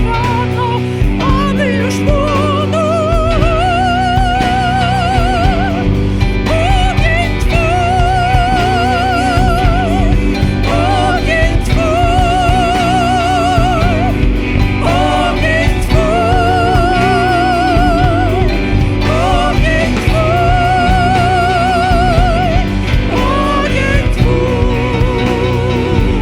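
Worship band playing, with a singer holding long sung notes with a wide vibrato, phrase after phrase, over guitar, bass and drums.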